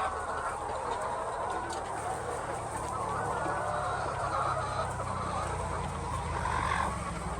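A large flock of chickens clucking and calling all at once in a dense, continuous chorus, with a steady low hum underneath.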